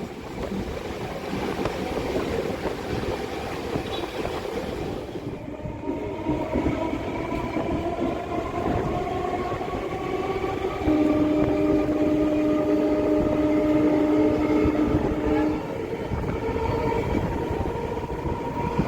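Suburban electric local train pulling away and picking up speed, running with a rumble and a whine that slowly rises in pitch. About eleven seconds in, a horn sounds steadily for about four and a half seconds.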